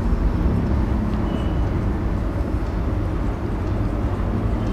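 Steady low rumble of background noise, with a couple of short faint squeaks from a marker writing on a whiteboard.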